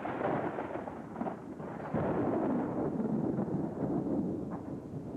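Rolling thunder rumbling, swelling suddenly about two seconds in and then slowly dying away.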